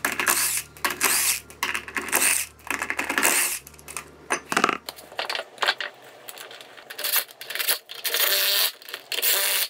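Cordless impact tool spinning lug nuts off and on a small trailer wheel in short, repeated bursts, with sharp metal clinks of the nuts and socket.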